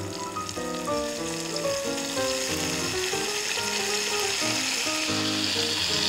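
Browned ground beef sizzling in a frying pan with soy sauce just added, a steady hiss that grows slightly louder. A background music melody plays along.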